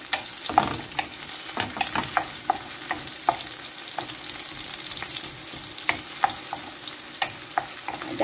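Chopped onion and garlic sizzling in hot oil in a small metal wok, sautéing as the aromatic base for a stir-fry. A wooden spatula stirring them knocks and scrapes against the pan in irregular clicks over the steady hiss.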